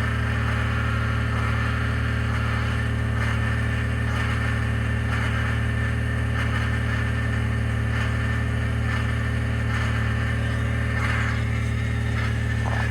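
Idle of a 2021 Ford F-150 PowerBoost hybrid's 3.5-litre V6, running steadily during a very cold start. An uneven, rough noise rises and falls over the idle; the owner calls it a cavitating or grinding noise.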